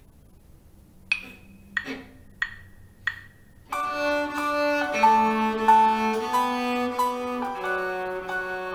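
Four evenly spaced count-in clicks, then an accompaniment track comes in a little past halfway with bowed cello playing sustained notes along with it.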